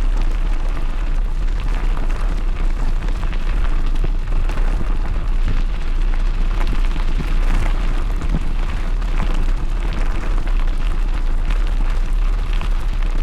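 Steady wind rumble buffeting the microphone of a bike being pulled along by a two-dog team, loud and unbroken.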